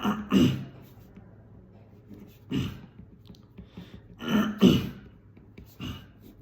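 A person clearing their throat over and over in short, sharp bursts, about six in all, some in quick pairs: a vocal throat-clearing tic.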